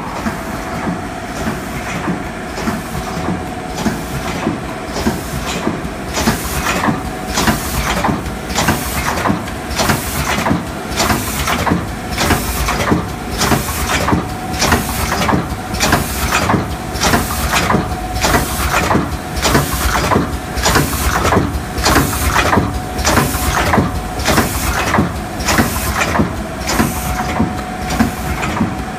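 HSP 1N K-cup filling and sealing machine running at production speed: its rotary table indexing with a regular clacking about twice a second over a steady whine.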